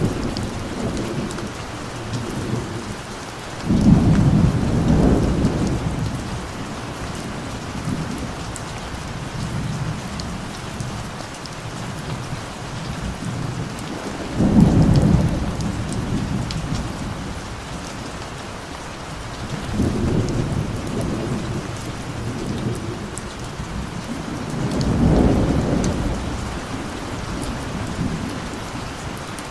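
Steady rain falling, with rolls of thunder rumbling in every five to ten seconds; the strongest rolls break in sharply, about four seconds in and again near the middle.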